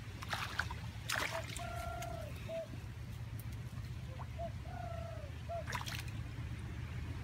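Shallow muddy water splashing and sloshing as a stick is worked into the mud, with sharper splashes about a second in and near the end. A bird repeats a call in the background, a long arched note followed by a short one, about every two seconds.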